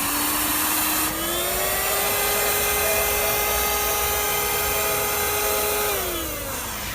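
120 W handheld car vacuum cleaner running with a steady high whine, its pitch stepping up about a second in. Near the end the motor winds down and the whine falls away.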